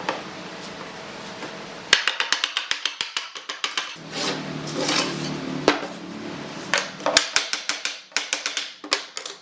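Rapid runs of sharp knocks as a wooden mallet taps wooden frame joints home, one run about two seconds in and another near the end.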